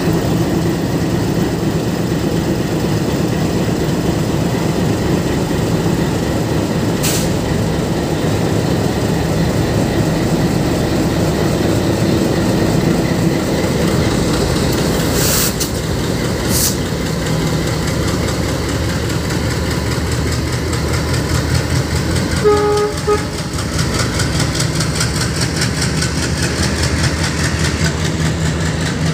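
Twin ALCO diesel locomotives pulling a passenger train out of the station, their engines running loud as they pass, then the coaches' wheels clicking over the rail joints. A short horn toot about two-thirds of the way through.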